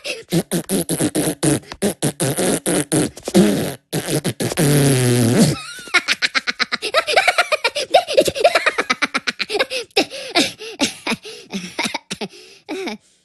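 Cartoon Minion voices making mouth noises: a run of rapid beatbox clicks and pops, then about four seconds in a long raspberry that falls in pitch, then pitched babbling mixed with more beatbox sounds.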